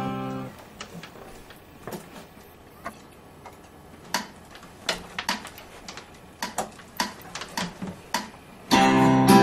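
An acoustic guitar chord rings and dies away, followed by a quiet stretch of scattered light clicks and taps at uneven intervals. Near the end, acoustic guitar strumming starts loudly.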